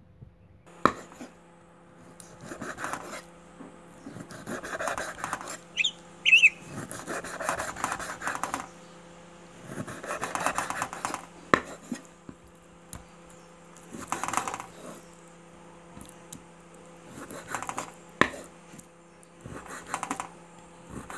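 Cleaver chopping raw pork into small pieces on a round wooden chopping board, in repeated bursts of quick strokes with a few sharp knocks on the wood. A steady low hum runs underneath.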